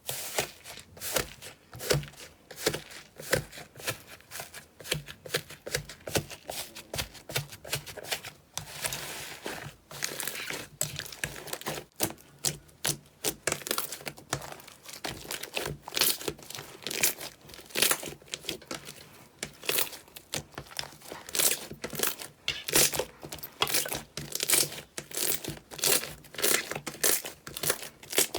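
Slime being squeezed and worked, giving dense, irregular crackling and popping clicks.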